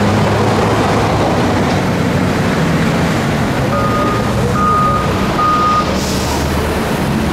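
Heavy diesel engines of demolition machinery running steadily, with a backup alarm beeping three times midway. A short hiss follows about six seconds in.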